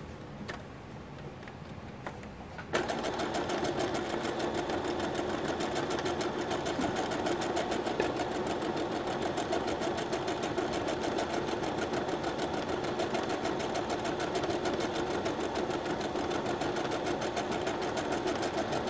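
Brother SQ9130 computerized sewing machine stitching a row of decorative hearts. It starts about three seconds in and then runs steadily with a fast, even stitch rhythm.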